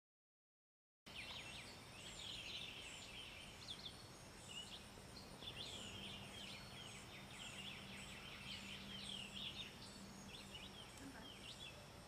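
Wild birds chirping and singing, many short falling notes repeating throughout, starting about a second in after silence. A faint low steady hum runs under them through the middle.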